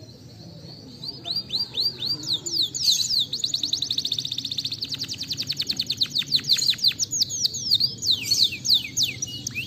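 Domestic canary singing. About a second in it begins a trill of repeated high, down-sweeping notes, which speeds up into a rapid rattle and then breaks into varied whistled phrases.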